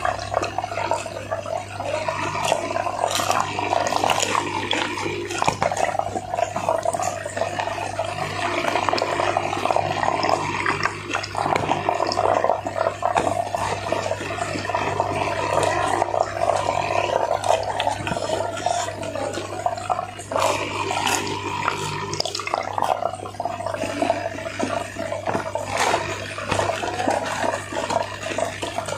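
Close-up eating sounds: wet chewing and smacking while eating fried chicken and rice, with the paper wrapper rustling, over a steady low hum.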